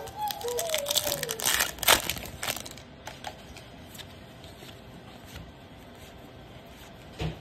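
Plastic wrapper of a 2024 Bowman baseball card pack crinkling as it is torn open by hand, loudest about two seconds in. The cards are then pulled out and handled, with a few light ticks and a soft thump near the end.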